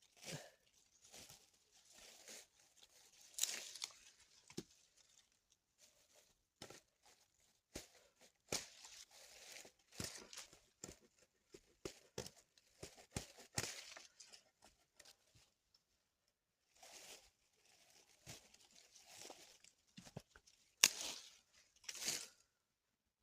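Irregular rustling, scraping and light clicks of materials being handled, with a sharper click near the end.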